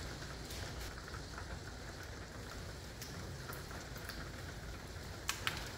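Steady hurricane rain falling, with two quick, sharp clicks close together near the end.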